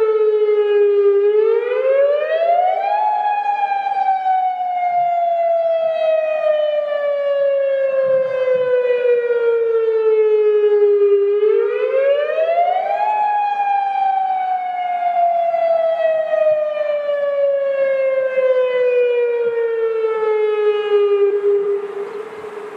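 Federal Signal Modulator 6024-B electronic tsunami siren sounding its wail, the All-Hazard Alert Broadcast test signal. The tone rises quickly for about two seconds, then falls slowly for about eight, twice over, and dies away near the end.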